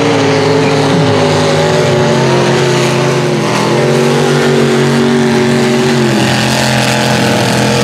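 Mud-racing pickup truck's engine running hard at high revs, loud and steady with small wobbles in pitch, dropping to a lower note about six seconds in as the truck tears through the dirt.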